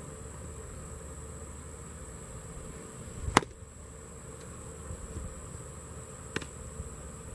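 A baseball pops into a catcher's leather mitt with one sharp, loud smack about three and a half seconds in, followed by a fainter pop about three seconds later. Insects buzz steadily throughout.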